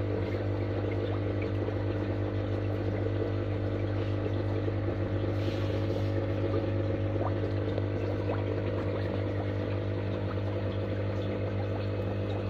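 Aquarium air pump (aerator) running with a steady low hum, its air bubbling and splashing up through a sponge filter's lift tube.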